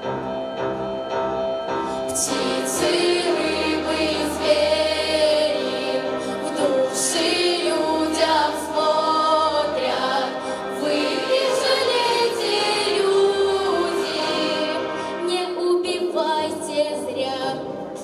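Youth choir singing with instrumental accompaniment, the voices holding and gliding through long notes with no words made out.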